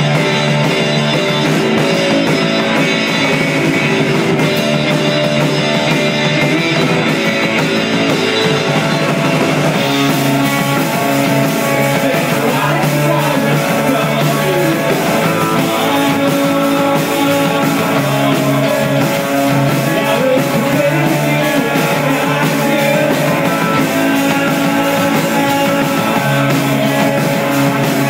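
Live rock band playing loud: distorted electric guitar, electric bass and drum kit, filling out with more cymbal and high-end noise from about ten seconds in.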